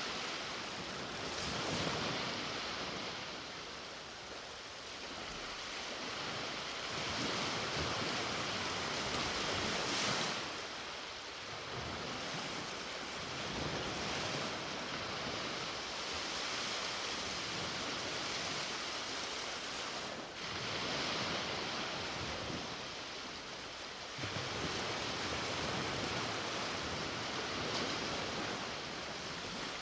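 Sea waves breaking and washing up the shore, a steady surf hiss that swells and falls back every few seconds.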